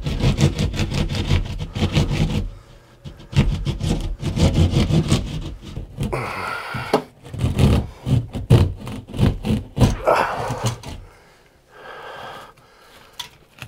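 Hand drywall saw sawing through a drywall ceiling: runs of quick rasping back-and-forth strokes, broken by short pauses, quieter near the end as the cut is finished.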